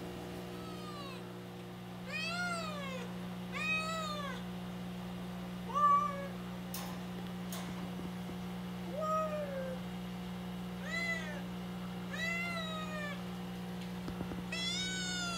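Young kitten meowing repeatedly: about eight high calls that each rise and fall in pitch, one to two seconds apart, over a steady electrical hum. She is a two-month-old stray kitten just brought into an unfamiliar home, meowing constantly, which her owner wonders is fear of the new place or calling for her mother.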